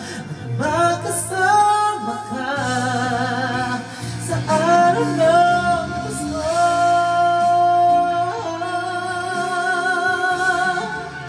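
A man singing a Tagalog song into a handheld microphone over backing music, drawing out long notes with vibrato, including one long held note in the middle.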